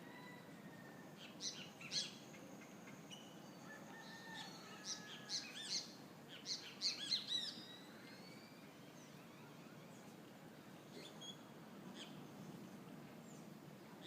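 Birds chirping in short, sharp calls, thickest in a quick flurry about five to seven seconds in and sparser afterwards, over a steady low background rumble.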